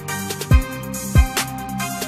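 Background music with a steady beat: deep kick drums that fall in pitch, about every two-thirds of a second, under held notes and bright percussion hits.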